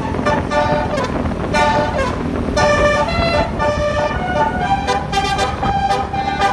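Telolet multi-tone bus air horn playing a quick tune of short honking notes at changing pitches, with a falling glide about two seconds in and a longer held note near the end.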